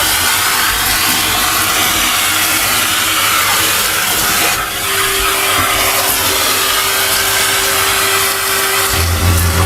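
Henry canister vacuum cleaner running steadily, sucking up building dust and debris through its hose. About halfway through the noise dips briefly, and a steady hum note sets in after it.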